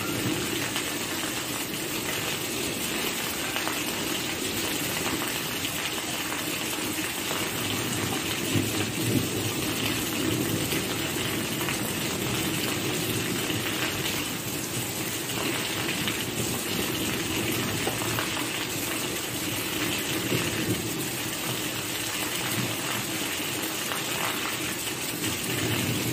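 Steady rain falling, an even continuous hiss of rain.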